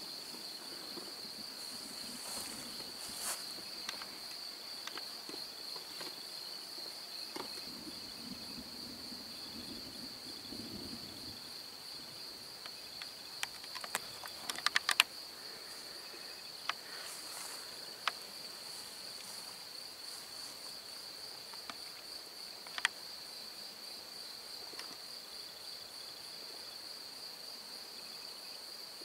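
Crickets chirring steadily and without a break through a calm night. A faint low rumble sounds in the first ten seconds or so, and a quick cluster of sharp clicks comes just past the middle.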